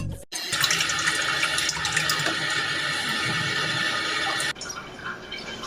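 Water running steadily, starting suddenly and cutting off abruptly about four and a half seconds in, followed by fainter splashing or dripping.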